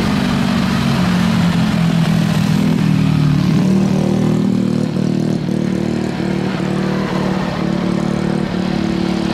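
Jet engines of an Airbus A320 heard from a distance as it rolls along the runway at the start of its takeoff: a steady low drone with a rushing noise above it.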